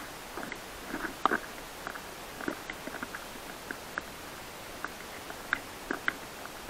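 Irregular clicks, knocks and crunches from a camera being carried along a rough dirt trail, unevenly spaced at a few a second, over a steady hiss.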